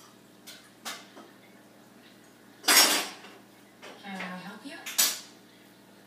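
Hard objects clinking and clattering: a couple of small clinks, then one loud clatter about three seconds in, a short rattle, and another sharp clink near the end.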